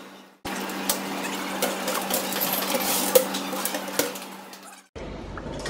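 Bakery machinery humming steadily, with scattered light metallic clicks and knocks as the metal oven loader is worked. The sound starts about half a second in and fades out shortly before the end.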